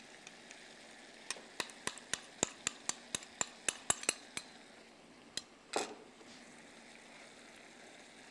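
A spoon tapping and scraping against a small glass bowl: a quick run of about a dozen sharp clinks, roughly four a second, as the bowl is knocked clean over the pot, followed by a single duller knock.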